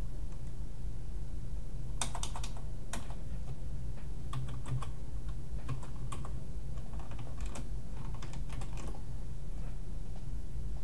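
Typing on a computer keyboard: a quick run of keystrokes about two seconds in, then scattered keystrokes through the middle, over a steady low hum.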